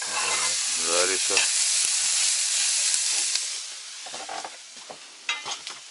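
Fish sizzling as it fries in a pan: a dense, even sizzle, loud for about three and a half seconds, then fainter.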